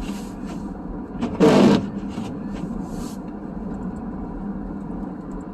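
Steady road and engine noise inside a car driving on a snowy road, with a low steady hum. A short, loud burst of noise about one and a half seconds in stands out above it, with a few faint clicks before and after.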